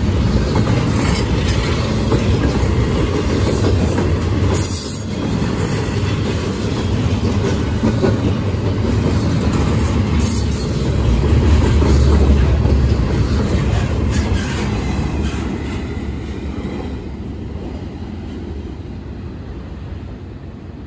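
CSX I038 double-stack intermodal container train passing close by: a steady rumble and clatter of wheels on rail, with brief high squeals from the wheels twice. The sound fades over the last several seconds as the end of the train moves away.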